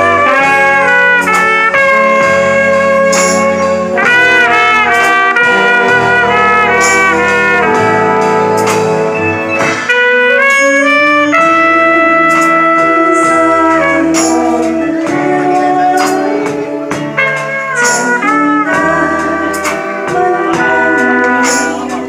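Alto saxophone playing a melody line over a band backing with a bass line and percussion hits.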